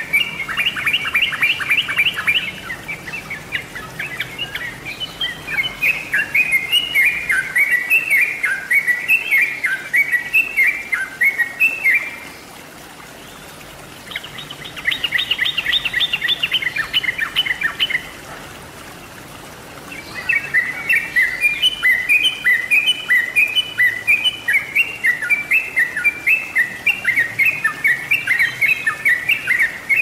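Yellow-vented bulbul (trucuk) song: rapid bubbling, chattering phrases of short notes, repeated in long runs with two brief pauses.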